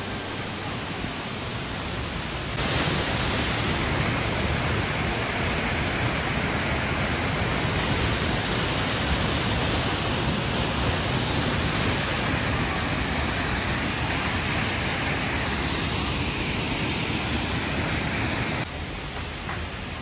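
Minoo Falls waterfall pouring into its plunge pool: a steady rush of falling water. It gets louder about two and a half seconds in, as the shot moves to the foot of the falls, and drops back a little near the end.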